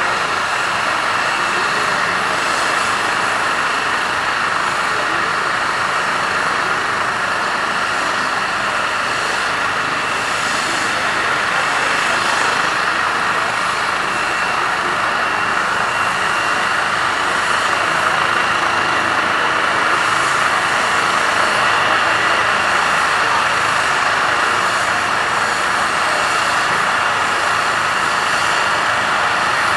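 Eurocopter EC135 air-ambulance helicopter running on the ground with its rotor turning: a steady turbine whine over the even rush of the rotor, swelling slightly about two-thirds of the way through.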